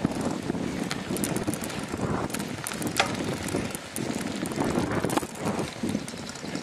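Bicycle rolling over a grass and dirt path: an uneven rumble from the tyres and the bike shaking, with a few sharp clicks and knocks over bumps, the loudest about three seconds in.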